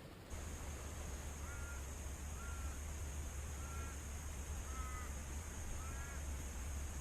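A bird giving five short, faint calls about a second apart, over a steady low rumble.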